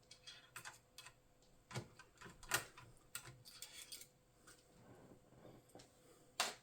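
Small screwdriver turning out screws from an all-in-one computer's chassis: faint, scattered clicks and taps of metal and plastic, with a sharper click about two and a half seconds in and another near the end.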